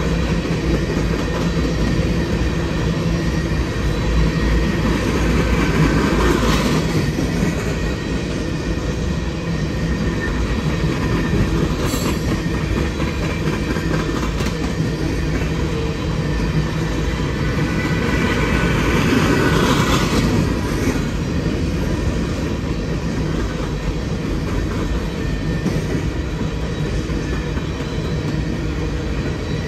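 Empty aluminium coal gondola cars of a unit train rolling past, with a steady rumble and clatter of wheels on rail. The rattle grows brighter and louder twice, about six seconds in and again near twenty seconds, and there is a sharp click around twelve seconds.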